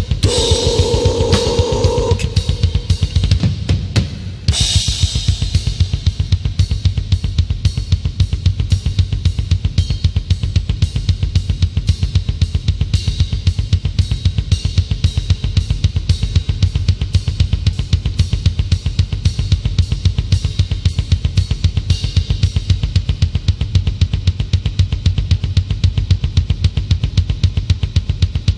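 Metal drum kit playing a fast, steady beat on bass drum, snare and cymbals, with a held note sounding over it for the first two seconds.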